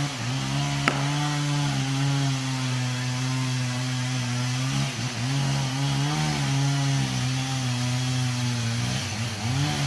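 Chainsaw revving up and running steadily through a felling cut in a large tree trunk. Its pitch dips briefly twice near the middle and wavers near the end. A single sharp knock comes about a second in.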